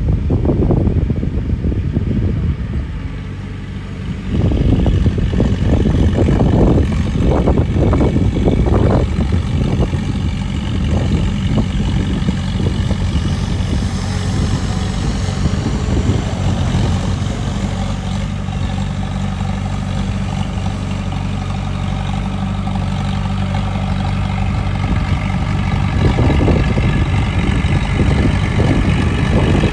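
Diesel engine of heavy earthmoving machinery running steadily. Rough surges of noise come in the first few seconds, and a fainter high whine joins from about halfway.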